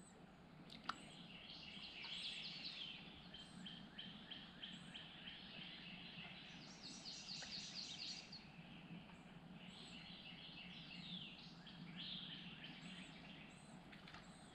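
Faint birds chirping and trilling, many quick high notes, with a single sharp click about a second in.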